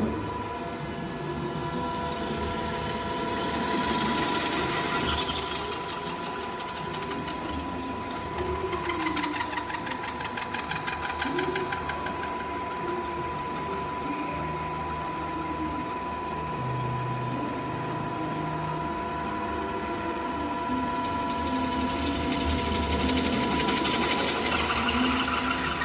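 CMA Rapid Drill RD-32 CN CNC drilling line running, a steady motor hum with a whine, rising into stretches of fast, even rattling pulses about five and nine seconds in and again near the end.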